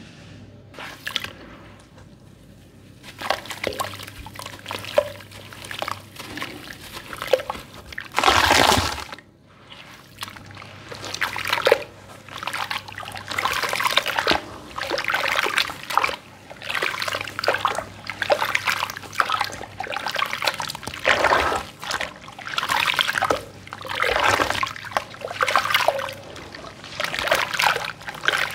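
Hands kneading and squeezing wet sand-cement slurry in water in a basin: wet squelching and sloshing in repeated strokes, about one a second. It starts softly, and there is one louder splash about eight seconds in.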